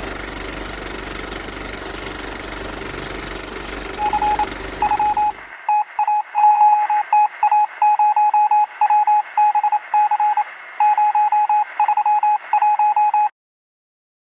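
A single beeping tone keyed on and off in short and long pulses, like Morse code, with a thin, radio-like sound, starting about four seconds in and stopping sharply about a second before the end. Before it, a steady rumbling noise fills the first five seconds.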